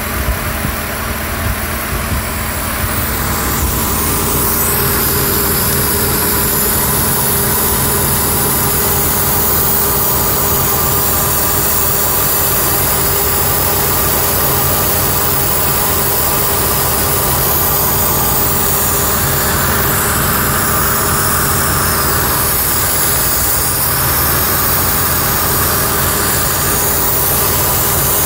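Ford Taurus 3.0 Duratec 24-valve V6 idling steadily, with a continuous hiss from a large vacuum leak. The leak is at a collapsed 90-degree PCV elbow hose under the throttle body.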